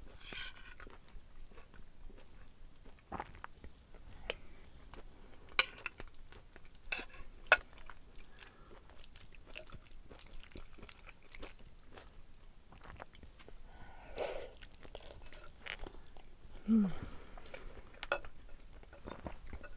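Close chewing of noodles, with scattered sharp clinks of metal cutlery against a ceramic bowl.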